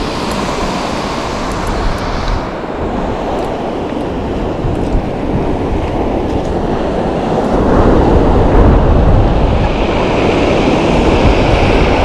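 Strong wind buffeting an unshielded camera microphone: a loud, rough rush that is heaviest in the low end and grows louder about two thirds of the way through.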